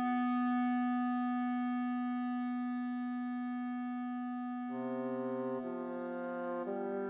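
Instrumental background music. One long held note sounds alone, then about two-thirds of the way through fuller chords with lower notes come in and change about once a second.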